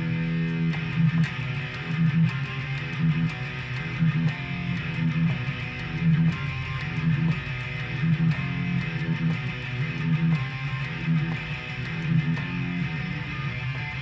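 Electric guitar playing a repeating riff, with accents about once a second.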